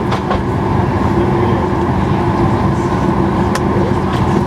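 Steady hum and air noise inside a parked Boeing 737-800 cabin at the gate, with a few faint clicks.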